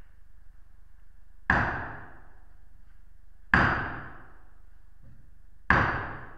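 A hammer striking a nail: three heavy blows about two seconds apart, each ringing out briefly in the reverberant church.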